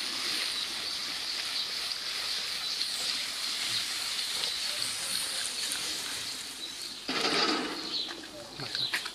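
Chopped green apples and green tomatoes sizzling in oil in a steel wok over a wood-fired grill, a steady hiss, with a louder burst of sizzle and clatter about seven seconds in as the wok is worked.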